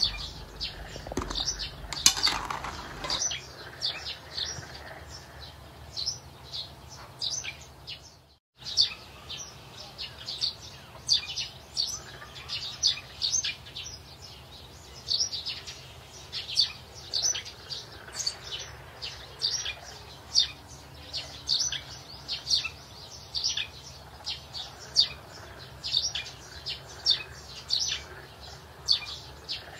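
Small birds chirping in short, sharp high notes, one or two a second, over a faint steady low hum.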